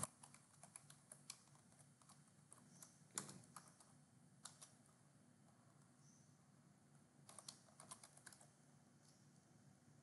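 Faint computer keyboard typing: scattered key clicks, with a quicker run of keystrokes about seven to eight and a half seconds in.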